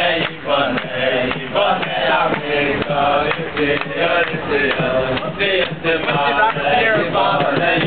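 A group of men singing together, one continuous song.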